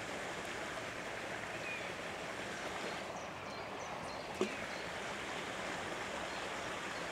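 Steady outdoor noise of wind and water by the canal, with a few faint high chirps and a single short sharp click about four seconds in.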